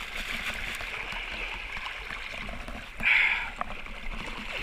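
River current rushing and splashing around a kayak, with a louder surge of splashing about three seconds in.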